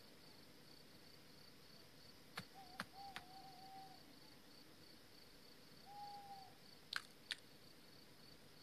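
Night ambience: crickets chirping in a steady, rapid high pulse, with an owl hooting twice, a longer hoot about two and a half seconds in and a shorter one about six seconds in. A few sharp clicks, the loudest sounds, come around the first hoot and again about seven seconds in.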